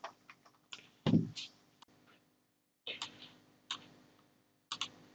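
Computer keyboard keystrokes and mouse clicks in a few short clusters, with one heavier knock about a second in.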